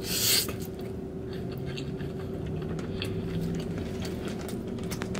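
Close-up mouth sounds of someone chewing a mouthful of cheesesteak fries: a short rush of noise as the bite goes in, then soft wet chewing with faint clicks.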